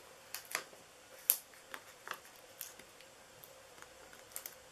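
Faint small clicks and crackles of foam adhesive dimensionals being peeled off their backing sheet and pressed onto a cardstock heart, with one sharper click about a second in.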